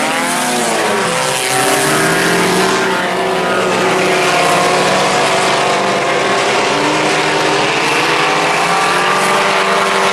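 A pack of four-cylinder IMCA Sport Compact race cars running hard around the track. Several engines are heard at once, their pitch falling and rising in the first couple of seconds, then holding steadier at speed.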